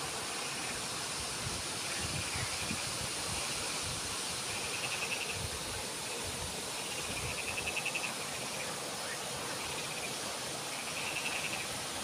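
A steady rush of flowing stream water, with an insect calling over it in short, rapidly pulsed high trills that come back about every two to three seconds.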